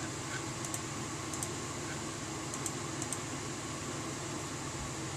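Steady background hiss of room tone, with a few faint light ticks.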